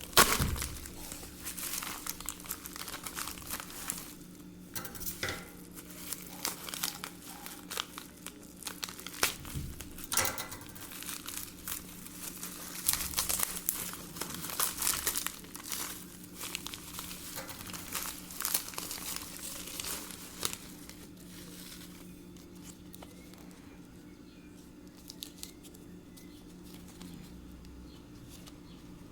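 Packaging being handled and torn open to unbox a Nagoya 771 handheld-radio antenna: irregular crinkling, rustling and tearing with a sharp knock right at the start, dying down to a low steady hum for the last several seconds.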